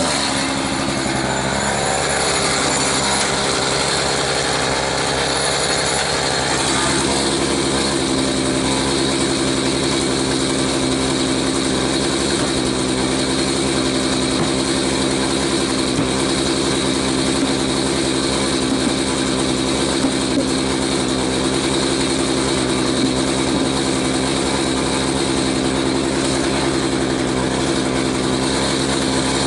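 Echo CS-590 Timberwolf two-stroke chainsaw running, brighter and higher-pitched for the first six seconds or so, then dropping to a steady idle.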